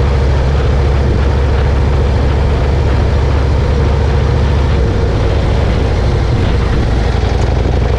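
A motorcycle being ridden along a road at a steady speed: a loud, steady low engine rumble with a rush of wind and road noise over it.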